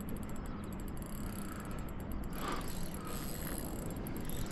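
Spinning reel's drag ticking and buzzing as a hooked fish, likely a dusky flathead, pulls line against a hard-bent rod, over steady wind and water noise.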